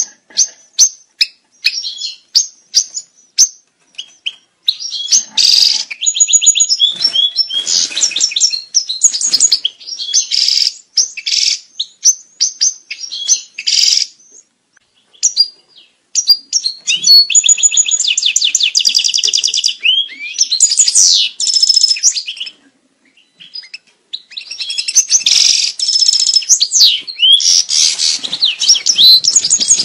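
European goldfinch breeding-season song: fast, loud twittering phrases of chirps, trills and buzzy notes, with brief pauses about halfway and about three-quarters of the way through.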